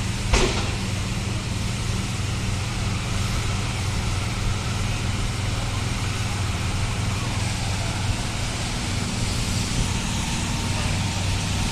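Steady low drone of vehicle engines with street traffic noise outdoors, broken by one sharp crack about half a second in.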